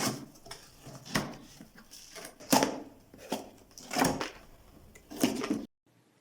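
Fingers knocking and tapping on packaged objects: about six separate knocks at irregular spacing, which stop abruptly near the end.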